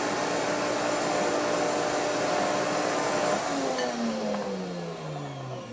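WantJoin commercial blender running steadily under its soundproof shield, blending hummus. About three seconds in, the motor starts winding down, its pitch falling steadily as the blending program ends.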